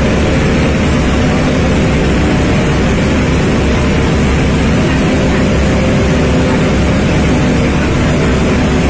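Loud, steady roar of heavy engines under a constant rushing hiss: firefighting pumps running and water cannons spraying onto a burning tanker.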